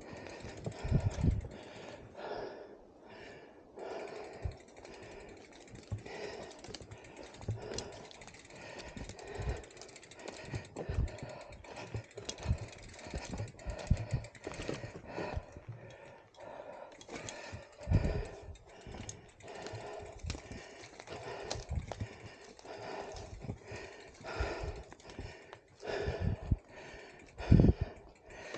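Mountain bike clattering and knocking over a rough track, with irregular thumps, the loudest about a second in, midway and near the end, and the rider's heavy breathing coming about once a second.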